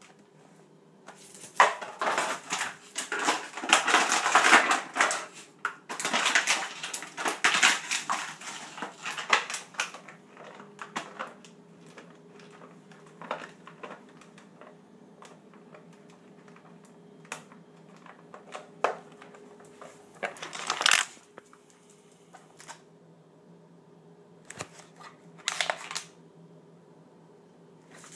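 Plastic water bottle crackling and crunching as small dogs bite and toss it about: dense crackling for the first several seconds, then scattered clicks with two short loud crackling spells near the end.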